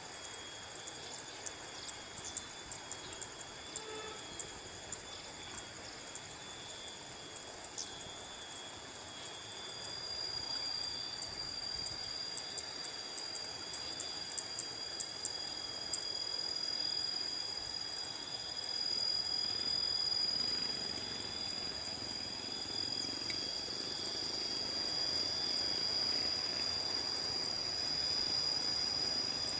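Outdoor rural ambience dominated by a steady, high-pitched insect drone of several shrill notes, with a louder one joining about ten seconds in.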